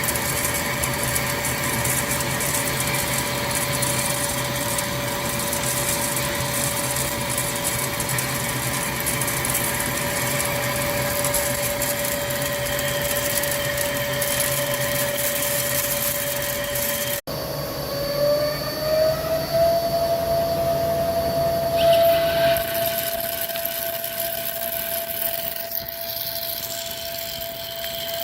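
CNC lathe running while machining a steel shaft: a steady machine whine over a hissing cutting noise. About 17 seconds in the sound breaks off abruptly, then the whine rises slightly in pitch and holds steady.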